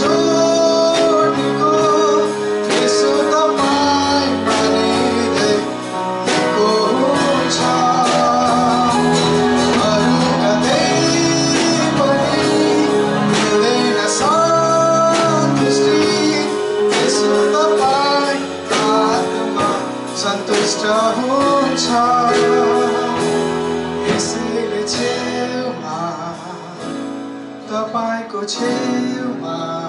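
A man singing a Nepali worship song into a microphone over instrumental accompaniment with guitar.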